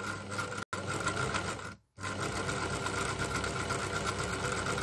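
Sewing machine running steadily: a motor hum under the rapid clatter of the mechanism as the eccentric drives the feed dog. The sound cuts out briefly twice in the first two seconds.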